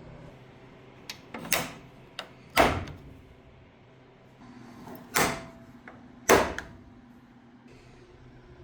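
Hood latch on a fiberglass hood being worked, with a series of sharp clunks and clicks. The loudest knocks come about two and a half, five and six seconds in, with lighter clicks before them.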